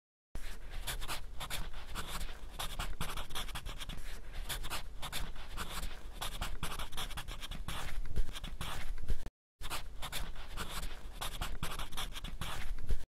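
A pen scratching as it draws, in quick rapid strokes, with a brief break about nine seconds in and a sudden stop near the end.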